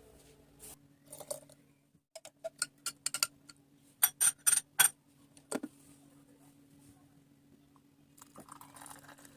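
Clicks and clinks of kitchen utensils being handled, with a quick run of five sharp clinks about four to five seconds in, over a low steady hum.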